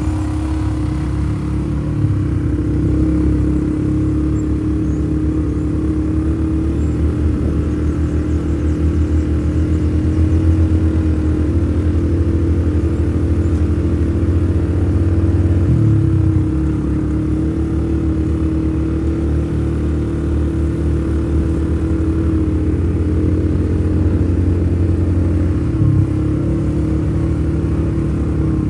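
Motor vehicle engine running steadily while under way, heard from on board as a constant low drone with a steady hum above it; the engine note briefly changes about 16 and 26 seconds in.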